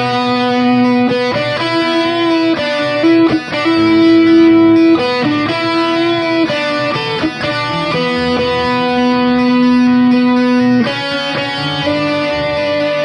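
Background music led by a guitar playing sustained melodic notes.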